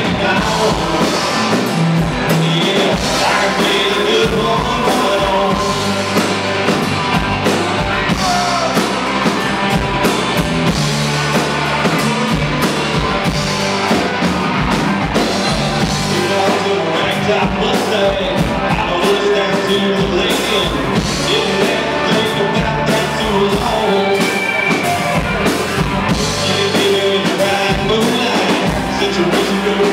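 Live country-rock band playing: electric guitars, bass and a drum kit keeping a steady beat, with a lead vocal over the top.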